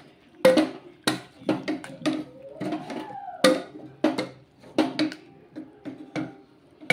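Wooden dal masher (pappu gutti) pounding cooked dal, tomato and cabbage in a pressure cooker pot: a steady run of short, soft thuds, about one and a half a second.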